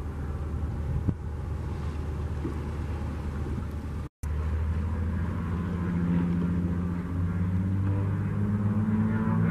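De Havilland Beaver floatplane's engine and propeller at takeoff power, a steady drone growing louder as the plane runs across the water. The sound cuts out for a moment about four seconds in.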